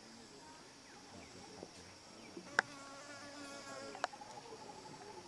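Insects chirping: a steady high buzz, joined about four seconds in by a fast pulsing trill. Two sharp clicks about a second and a half apart come in the middle.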